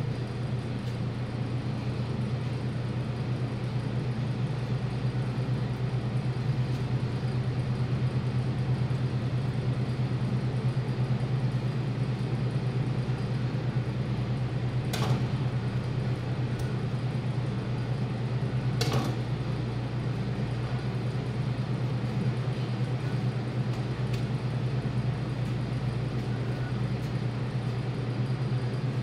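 Steady low hum of running machinery. Two brief sharp knocks come about four seconds apart, around halfway through.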